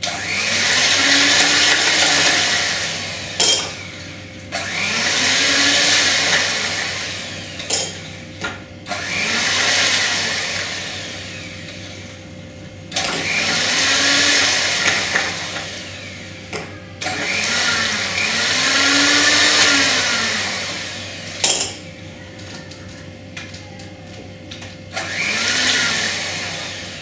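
Electric hand mixer with twin wire beaters whisking half-frozen ice cream base in a glass bowl to break up its ice crystals. The motor runs in about six bursts of a few seconds each, its pitch rising and falling, with short clicks in the pauses between bursts.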